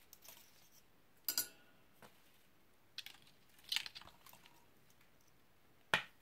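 Thin silver-plated copper wire being handled and wrapped by hand: scattered light scrapes and a few sharp clicks of wire, the sharpest click near the end.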